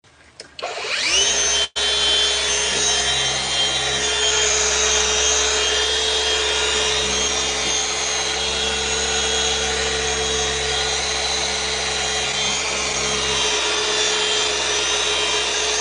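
Cordless variable-speed car polisher spinning up about half a second in, then running steadily with a whine as its foam pad is pressed against the car's paint, still turning under that pressure. A split-second break comes soon after it starts.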